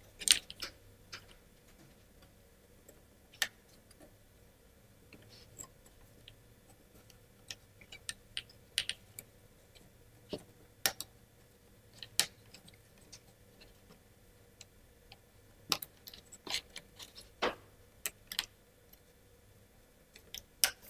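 Scattered light clicks and taps of laser-cut plywood model parts being handled and pressed together by hand, at irregular intervals, the sharpest click near the start.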